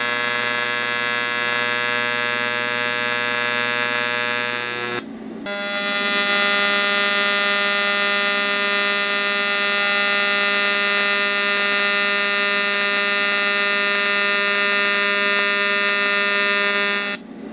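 AC TIG welding arc from an AHP AlphaTIG 200X on aluminum, buzzing steadily at a 120 Hz AC frequency. The arc stops about five seconds in and a new bead starts at 200 Hz, with a higher-pitched buzz that runs until it cuts off near the end.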